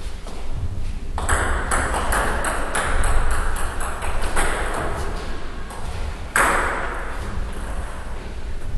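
Table tennis ball ticking in quick succession off the bats and table during a short rally. A single louder hit comes about six seconds in.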